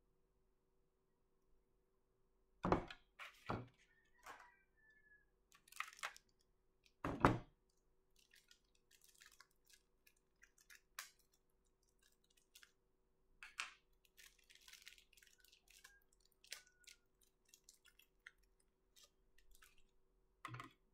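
Handling of a plastic model airliner and its small parts on a desk: a few short knocks as pieces are set down, then many scattered small clicks and light plastic crackling.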